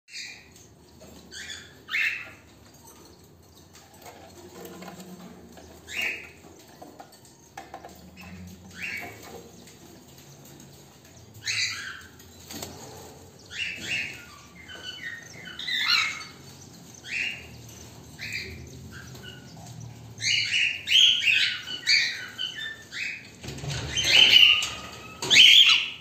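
Cockatiels chirping in short, sharp calls, a few spaced calls at first, then frequent and overlapping over the last several seconds.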